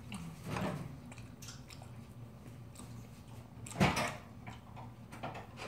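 Wooden chopsticks knocking against a ceramic bowl a few times while eating, the loudest knock about four seconds in, over a steady low hum.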